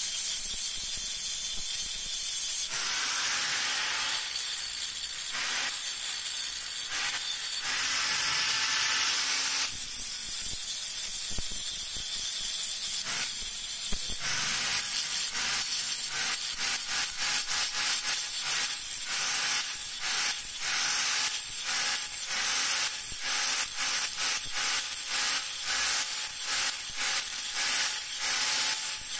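Electric angle grinder's disc grinding the end of a steel rebar to shape a chisel tip: a steady, loud hissing grind. About halfway through it turns into a regular pulsing, about twice a second.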